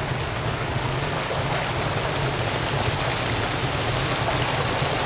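A rocky mountain creek running over small cascades and boulders: a steady, unbroken rush of water.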